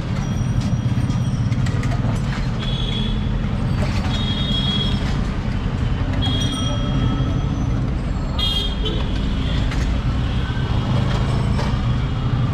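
Street traffic: a steady low rumble of passing engines, with short high-pitched horn toots every few seconds.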